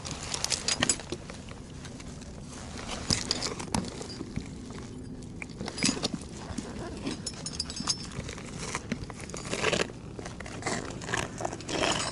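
A climber moving about on rocky ground and handling gear: irregular clicks, scrapes and crunches, with the busiest clusters near the start and in the last few seconds.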